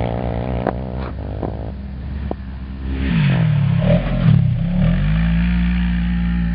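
Polaris RZR XP 900 side-by-side's 875 cc parallel-twin engine running under throttle, steady at first, then dipping and rising in pitch in several quick revs about halfway through before holding a higher steady note. A few sharp clicks in the first two seconds.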